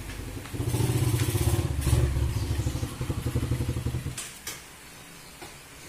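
An engine running with a rapid low pulse, which stops abruptly about four seconds in, followed by a couple of light clicks.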